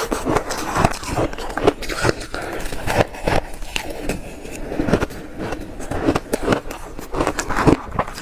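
Shaved ice being bitten and crunched close to the microphone: a dense, irregular run of sharp crackling crunches.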